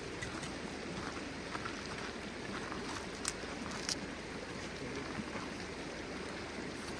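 Steady rushing of flowing river water, with a few short sharp clicks about three and four seconds in.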